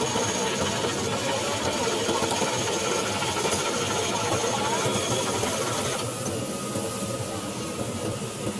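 A fishing boat's engine running under a dense, steady splashing hiss from a mass of small fish thrashing in the hauled net as they are scooped aboard. The higher hiss drops off suddenly about six seconds in.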